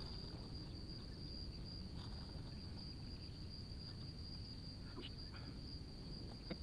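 Insects trilling in one steady high-pitched drone, with a low rumbling noise underneath and a couple of faint soft clicks.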